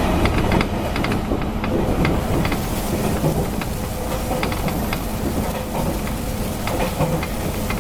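Interior running noise of a JR Kyushu 813 series electric train, heard from inside motor car MoHa 813-1104 while it runs between stations: a steady rumble of wheels on the rails with frequent light clicks.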